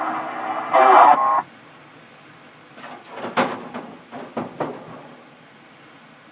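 CB radio receiver: a garbled, distant voice with a steady tone under it breaks off about a second and a half in, leaving the set's hiss. Then a short run of sharp crackles and pops of static comes in the middle.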